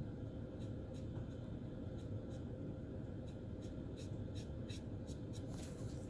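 Fine paintbrush tip dabbing on the plastic hull of a scale model: faint, irregular little ticks that come more often in the second half, ending in a brief scratch, over a steady low hum.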